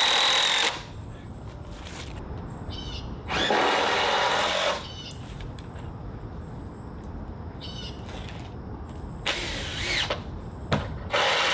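Cordless drill-driver driving screws into deck framing lumber, in about four separate runs of roughly a second each, with small clicks and knocks in between.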